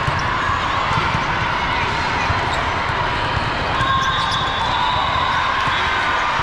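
Volleyball match ambience: a steady hubbub of spectator and player voices with a few ball strikes on the court.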